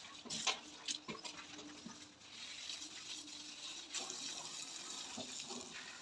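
Water from a garden hose spraying and splashing onto a backhoe loader's metal bodywork: a steady hiss with a few sharp splatters in the first second or so.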